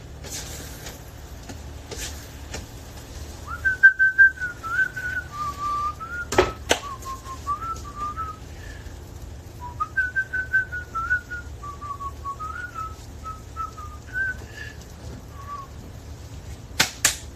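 A man whistling a wandering tune in two phrases, with a sharp knock partway through and a couple of clicks near the end.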